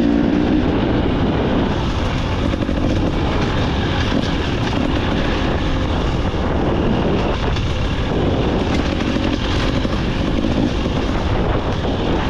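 KTM EXC 300 TBI two-stroke enduro engine running on a trail ride, its pitch rising and falling as the throttle is worked.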